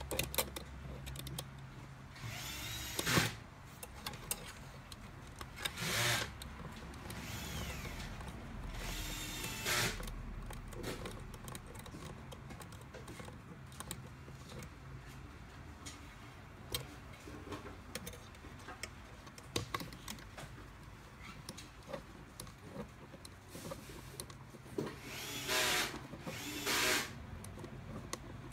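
Small electric power screwdriver run in five short bursts of under a second each, its motor whining up and down as it drives screws, with light clicks and handling of small parts in between.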